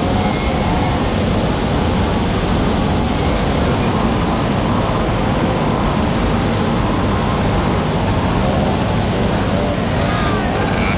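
Many small two-stroke moped engines running together at close range, idling and being blipped, with faint revs rising and falling over a steady din.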